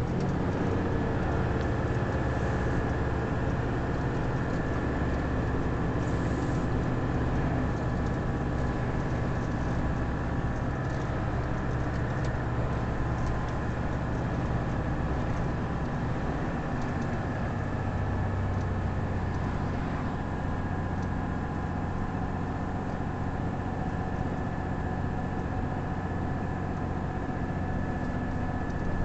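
Steady engine drone and tyre/road noise inside the cab of a lorry cruising at highway speed, with a faint steady high whine on top.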